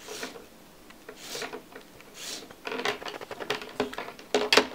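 Hands handling LEGO Power Functions plastic cables and connectors: a few soft rubbing swishes, then a run of quick light plastic clicks in the last two seconds.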